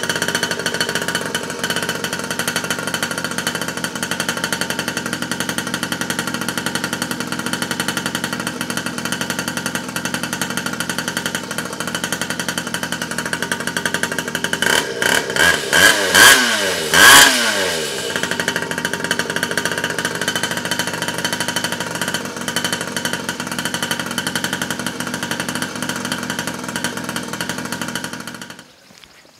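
47 cc two-stroke pocket bike engine running steadily on its first start after reassembly. About halfway through it is revved in several quick blips, its pitch rising and falling, then it settles back to a steady run. The sound cuts off shortly before the end.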